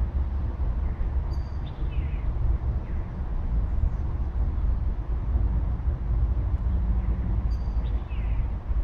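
Steady low outdoor rumble with a wavering level. Faint high chirps come about a second and a half in and again near the end.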